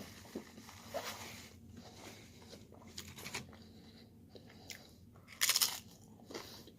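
A person eating close to the microphone: soft chewing and mouth clicks, with a louder crunchy bite about five and a half seconds in.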